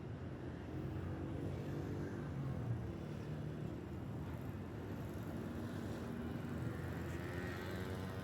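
A large vehicle's engine, likely a bus, running steadily with a low rumble.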